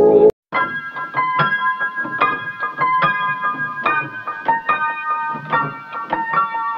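Background music: one track cuts off at the start, and after a brief gap an electric piano intro begins, playing chords about two or three times a second.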